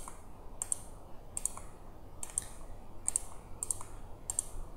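Computer mouse clicking, one sharp click about every two-thirds of a second, as line segments are placed one by one in a 3D modelling program.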